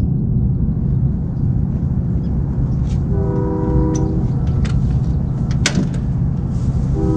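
Ambient background music: sustained chord tones swell in twice, over a steady low rumble, with a few sharp clicks near the middle.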